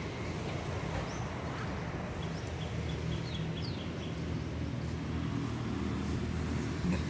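Outdoor background: a steady low rumble, with a few short, high bird chirps between about one and four seconds in.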